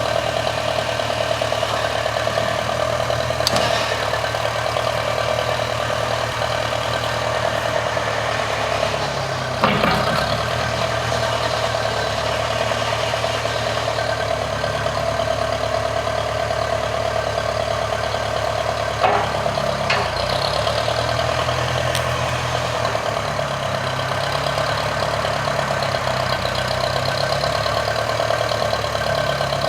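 An engine running steadily, its low hum shifting in pitch a few times, with a few short clicks.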